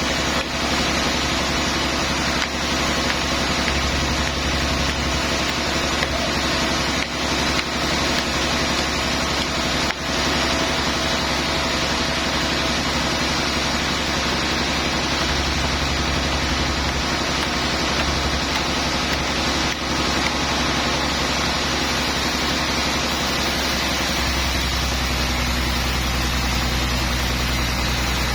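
Sawmill machinery running steadily: a constant mechanical hum with engine-like tones. The low tone shifts about 24 seconds in.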